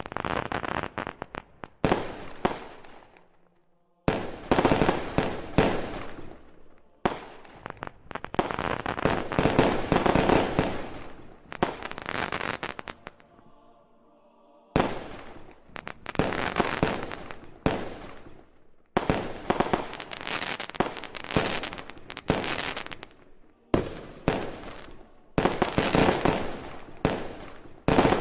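Aerial fireworks shells bursting one after another in quick succession, each bang followed by crackling, with a brief lull about halfway through before the bursts resume.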